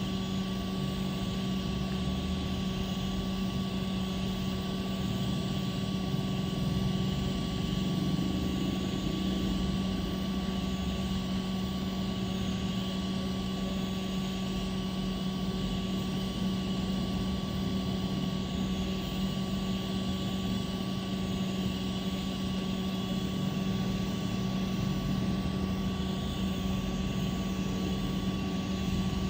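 Steady motor hum: a constant low drone with a faint higher whine, unchanging throughout.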